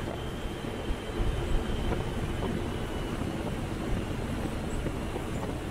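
Ashok Leyland coach driving at speed on a highway, heard from inside the cab: a steady rumble of engine and road noise with a few faint ticks.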